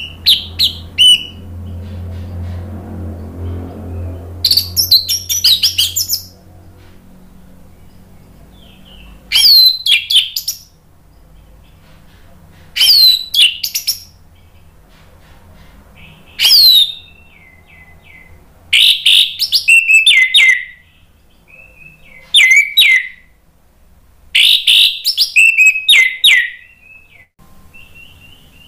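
Orange-headed thrush singing: short phrases of high, quickly sliding whistles and trills, about eight of them, repeated every few seconds. A low rumble sits under the first few seconds.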